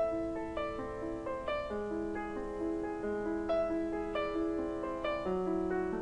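Background piano music: a slow melody of struck notes over held lower notes.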